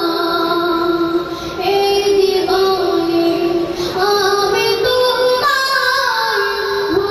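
A boy singing a Bengali gazal (Islamic devotional song) about his mother into a microphone, holding long notes that step up and down in pitch.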